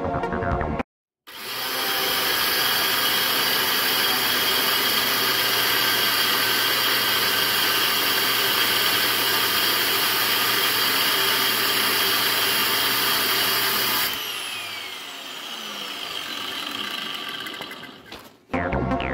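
Angle grinder in a cut-off stand, fitted with a 3M Cubitron II 125×1 mm cutting disc, cutting through a 28 mm steel bar with a steady high whine for about thirteen seconds. The motor is then switched off and the whine falls in pitch as the disc spins down. Electronic music plays briefly at the very start and again near the end.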